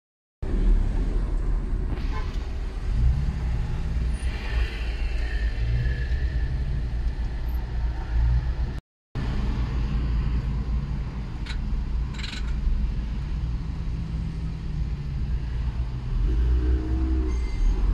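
Car engine and road rumble heard from inside the cabin while creeping through heavy traffic: a steady low hum with no speech. The sound drops out briefly a little before halfway, and a short pitched sound comes near the end.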